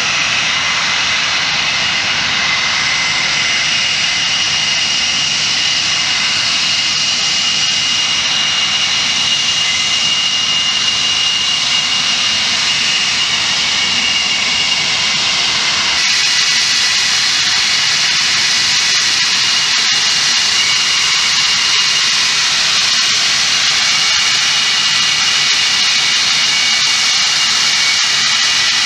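English Electric Lightning's twin Rolls-Royce Avon turbojets running at taxi power: a steady high whistle over a loud rushing noise. The sound turns brighter and harsher suddenly about halfway through.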